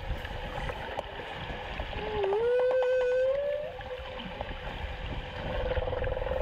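Male humpback whale song picked up by a hydrophone: drawn-out moaning tones that slide in pitch. About two seconds in, one moan dips and then rises and holds, with a quick run of pulses, all over a low rumble.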